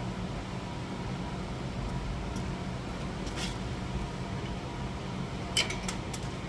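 Steady low machine hum, with a few light clicks or taps near the end.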